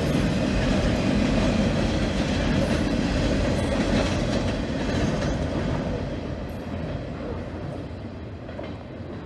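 Short-line freight train running past at speed, its cars rolling over the rails, the sound fading over the last few seconds as the train moves off.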